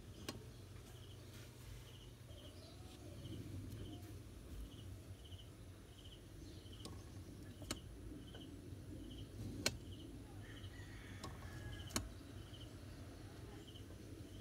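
Faint background: a high chirp, like an insect's, repeating about every two-thirds of a second over a low steady hum, with a few sharp clicks spread through it.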